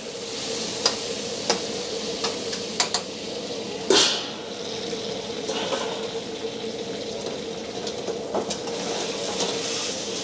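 Chicken karahi frying in a large karahi wok: a steady sizzle of hot oil, with metal utensil clinks against the pan several times and a loud surge of sizzle about four seconds in. A steady hum runs underneath.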